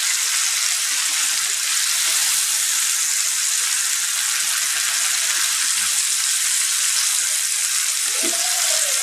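A fish fillet shallow-frying in butter in a nonstick frying pan, sizzling steadily.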